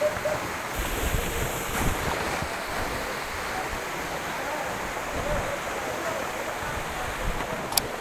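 Waterfall water rushing and splashing over rocks, a steady noise, with low rumbles of wind on the microphone in the first couple of seconds and a sharp click just before the end.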